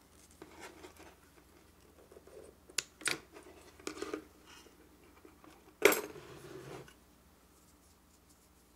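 A few light clicks and snips from scissors cutting thread, then a sharper knock about six seconds in followed by about a second of rustling cloth.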